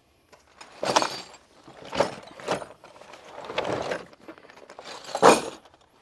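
A canvas tool roll being unbuckled and unrolled, the metal wrenches inside clinking and clattering in several short bursts, the loudest near the end.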